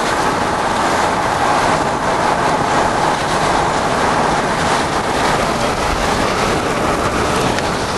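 Steady road and wind noise inside a moving car, an even rushing hiss with no breaks.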